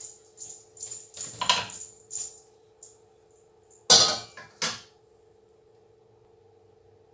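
Stainless-steel steamer tiers and lid clinking as they are handled, then two loud metal clanks about four seconds in as the steamer is set down on the pot. A faint steady hum runs underneath.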